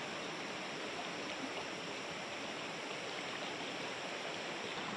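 Swift, shallow river rushing over rocks, a steady rapids sound.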